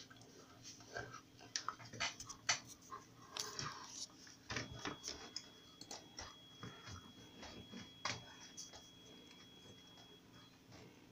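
Faint scattered clicks and rustling handling noise in a small room, with a faint steady high tone for several seconds in the middle.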